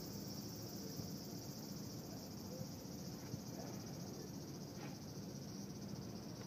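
Steady high-pitched insect chorus droning in the trees, with a couple of faint clicks.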